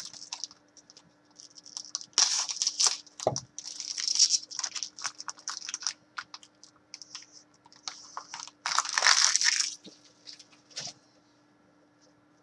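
Trading-card pack wrapper being torn open and crinkled, then cards slid and shuffled by hand, in a series of rustling bursts. The loudest comes about nine seconds in, and it quietens near the end.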